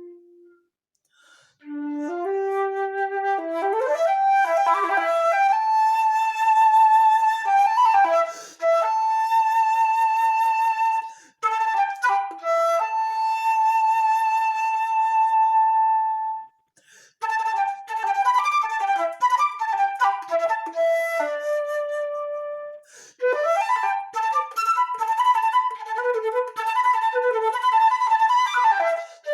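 Solo flute playing unaccompanied. It plays quick runs that climb in pitch, then long held notes with vibrato, in phrases broken by short pauses.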